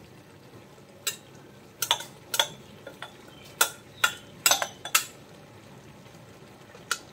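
A steel spoon clinks against a ceramic bowl and a cast-iron kadai as ground coconut masala is scraped into the pan and stirred through chicken. About ten sharp clinks come, most of them between one and five seconds in and one more near the end, over a faint sizzle from the pan.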